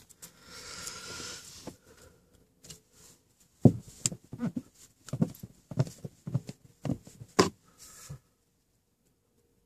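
A short breathy hiss, then a run of about a dozen sharp knocks and taps over some four seconds from a hand working close to the phone's microphone, with the loudest knock a little over halfway through.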